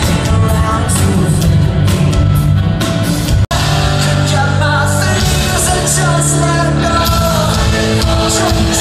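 Pop-punk band playing live, with singing over guitars and drums, loud and continuous. A split-second dropout about three and a half seconds in, where two recordings are joined.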